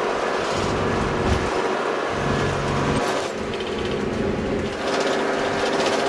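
Minibus engine and road noise heard from inside the cabin while driving, fairly steady.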